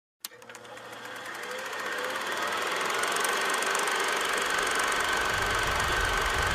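Film projector running: a fast, even mechanical clatter with a steady high whine, starting with a click and growing louder over the first few seconds. A low rumble swells in near the end.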